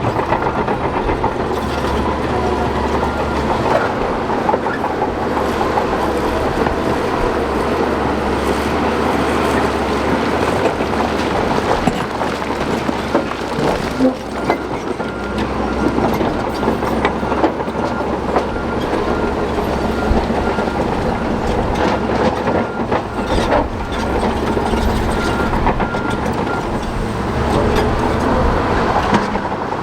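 Shantui DH17 crawler bulldozer at work spreading rock: its diesel engine runs steadily under load over a continuous clatter of steel tracks and rock.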